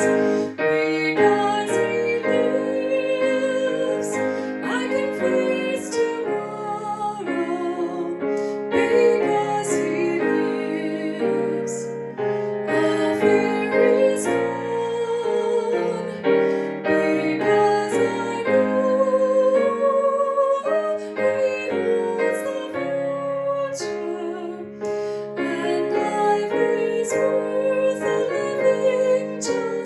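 Piano accompanying a singer who holds notes with vibrato.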